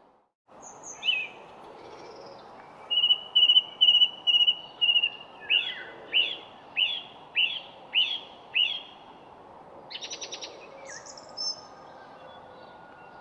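A songbird singing over a steady background hiss. It gives a run of about six even, high whistled notes, then about six down-slurred notes at a steady pace, then a short quick rattle and a few high notes.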